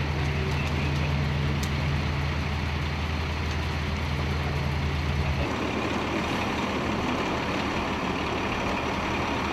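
Engine of a large military vehicle idling with a steady low hum. About five seconds in the hum drops away, leaving a steady, even outdoor noise.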